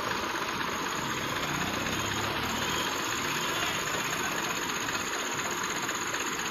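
Heavy diesel engine idling steadily, with no change in speed.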